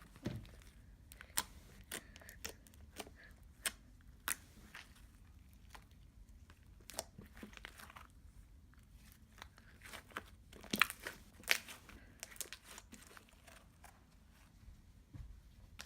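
Fingers poking and pressing slime: irregular sticky clicks and small crackling pops, with a busier cluster about eleven seconds in.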